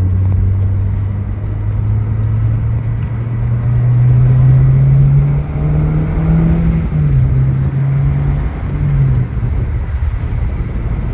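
Acura RSX Type S's four-cylinder K20A2 engine accelerating gently, its note climbing for several seconds, then dropping back with an upshift about seven seconds in and again about nine seconds in. The drive is kept easy, with no hard pulls, because the engine is due an oil change.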